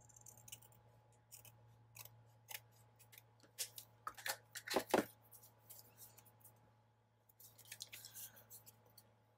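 Scissors snipping paper in a run of quick, separate cuts, the loudest about four to five seconds in, with another cluster near the end.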